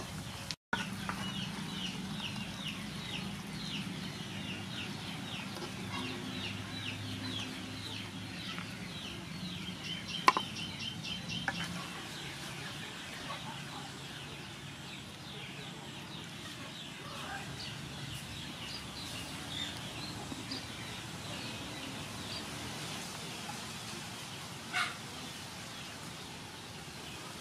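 Chickens clucking and calling, with a fast run of short, high repeated calls through the first twelve seconds or so. A single sharp knock comes about ten seconds in.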